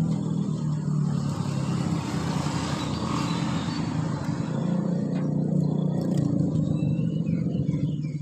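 A motor vehicle passing, its low engine hum and road noise swelling to a peak about three seconds in before easing off.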